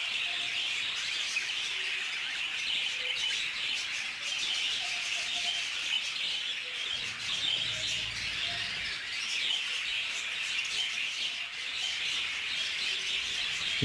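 A flock of budgerigars chirping and chattering together: a steady, dense twitter of many overlapping calls.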